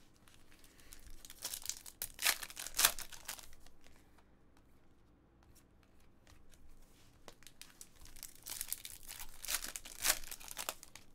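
Foil trading-card pack wrapper crinkling and being torn open by hand, in two bouts of crackling with a quieter pause between.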